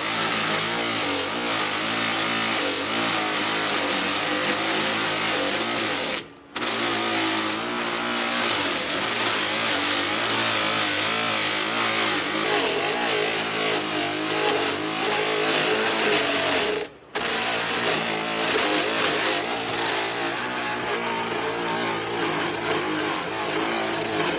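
Electric power tool motor running steadily under load on wood, cutting out sharply twice.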